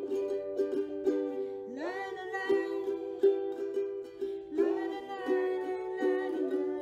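Background music: an acoustic song with a plucked ukulele and a sliding melody line.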